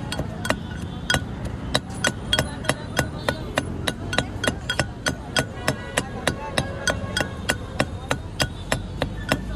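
Pestle pounding chopped green banana and coriander into a mash in a black mortar. It strikes steadily about three times a second, each a sharp knock with a brief ring.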